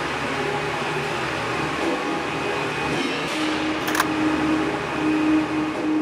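Steady mechanical noise of construction work, a continuous hum and rush, with a steady low tone coming in about three seconds in and breaking up toward the end, and a sharp click about four seconds in.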